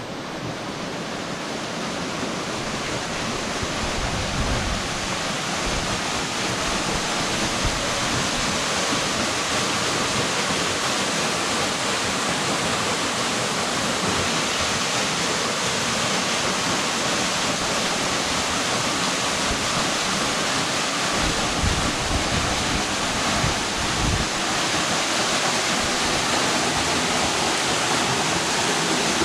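Flowing stream water rushing steadily, growing louder over the first few seconds and then holding even, with a few brief dull low bumps.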